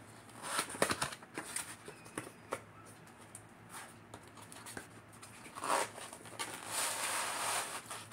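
Cardboard gift box being handled and opened, with scattered taps and rustles of the flaps. Near the end comes a longer scraping rub as the white packing insert slides up out of the box.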